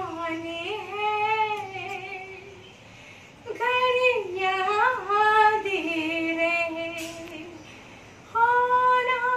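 A woman singing solo without accompaniment, in long held notes with sliding pitch: three phrases with short breaths between them.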